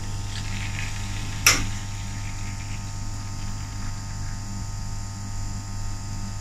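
Stovetop moka pot brewing, coffee welling into the upper chamber with faint crackling and sputtering over a steady low hum. A single sharp click comes about one and a half seconds in.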